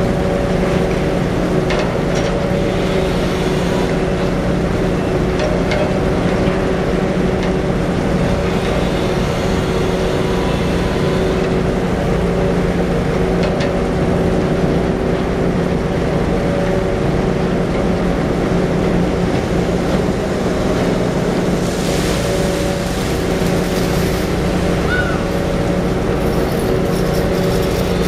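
Fishing boat's engine running steadily, a constant low hum that holds its pitch, with a brief rushing hiss joining in late.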